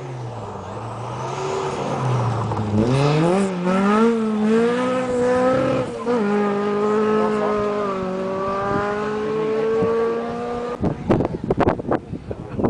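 Classic rally car's engine accelerating hard past on a gravel road: revs climb steeply about three seconds in, drop suddenly near six seconds as it shifts up, then stay high as it pulls away. Rough crackling noise comes in near the end.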